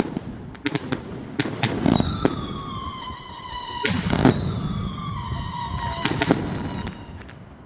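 A 128-shot firework cake firing a barrage: a string of sharp bangs and cracks, with two long whistling shots whose pitch falls slightly over about two seconds each. The shots thin out near the end.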